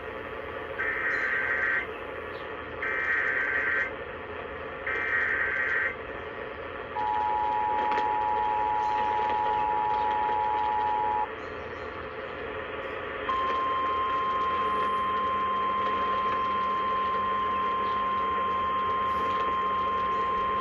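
Emergency Alert System tones opening a flash flood warning. First come three short bursts of warbling data tones, the SAME header, about a second each and two seconds apart. Then a steady two-note attention signal sounds for about four seconds. After a short gap, a single steady higher tone, the National Weather Service 1050 Hz alert tone, starts about two-thirds of the way in and holds.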